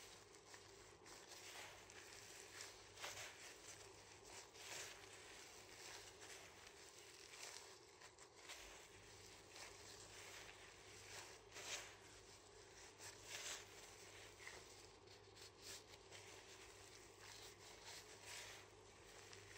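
Faint, irregular squishing and plastic-glove crinkling as minced beef is kneaded by hand with breadcrumbs and egg in a glass bowl, over a low steady hum.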